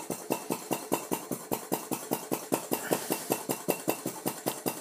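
Alyn Foundry CHUK 2 flame-gulper (vacuum) model engine running on a gas flame, with a fast, even clicking of about ten beats a second.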